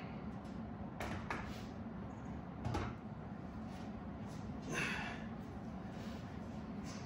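A lifter's short, sharp breaths between bench-press sets, with a dull thump a little before the middle, over a steady low hum.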